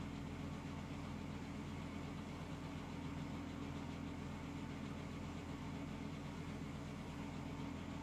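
A steady low hum with a faint hiss over it, unchanging throughout; no snoring breaths stand out.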